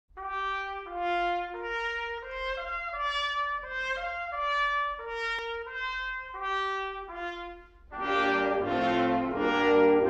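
Intro music: a solo brass line plays a stately melody of even notes, about one and a half a second, and fuller, louder brass chords come in about eight seconds in.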